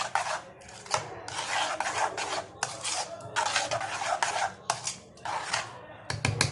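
A metal spoon scraping and rubbing against a dish in a series of strokes, each under a second long, with short pauses between them.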